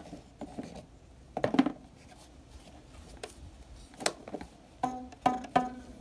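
Homemade pinecone banjo, strings stretched over a cardboard-box body with a driftwood neck, plucked by hand in scattered single notes. There is a louder group of notes about a second and a half in and three quick notes near the end.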